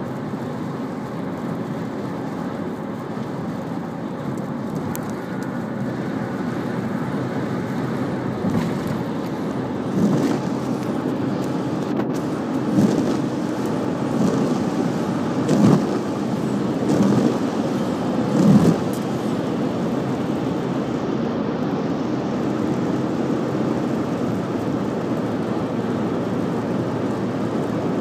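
Steady road and wind noise inside a car cruising on a highway, with a handful of short thumps midway through.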